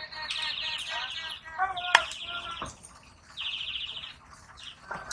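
Small birds chattering in three rapid rounds, with one sharp chop of a heavy knife through a fish steak onto a wooden block about two seconds in, and a lighter knock near the end.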